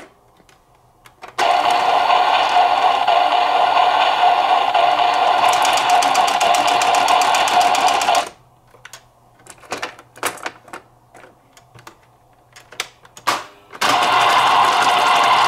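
Electronic toy shinkansen play set playing its running-train sound effect through a small built-in speaker, a steady tone with a fast rhythmic clatter joining in partway, which cuts off suddenly. Scattered clicks of the set's buttons and lever follow, and the running sound starts again near the end.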